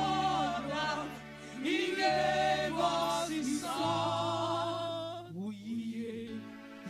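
Church choir of women singing a gospel praise song into microphones, a lead singer leading, in phrases with short breaks, over held low accompaniment notes that change a couple of times.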